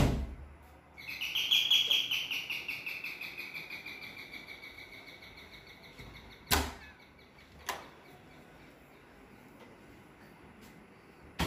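Electronic doorbell chime: a high, fast-warbling tone that swells and then slowly fades over about five seconds. Two sharp clicks follow a little later, and a louder knock comes at the very end.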